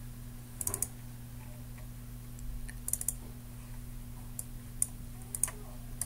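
Scattered clicks of a computer mouse and keyboard, mostly in quick pairs or triples, over a steady low hum.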